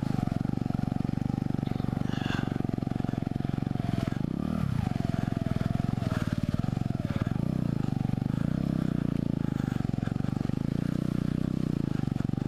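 Mutt Hilts 125's single-cylinder engine running steadily under way on a rough dirt lane. The revs dip and pick up again about four and a half seconds in, with a few knocks as the bike goes over bumps.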